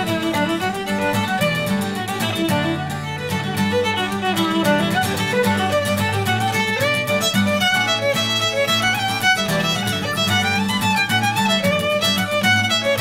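Background music: a Shetland fiddle tune, the fiddle playing a quick run of notes over a steady lower accompaniment.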